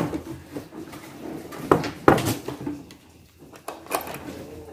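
A wooden goat-pen door being shut and its metal barrel bolt slid: a few sharp knocks and clacks, the loudest about two seconds in.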